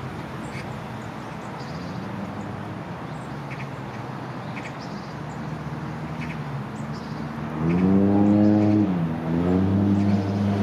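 Road traffic noise with a motor vehicle's engine accelerating and changing pitch, loudest in the last third, and faint bird chirps above it.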